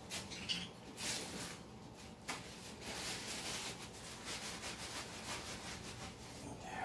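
Irregular short bursts of scratchy, rustling noise coming and going, with no steady tone.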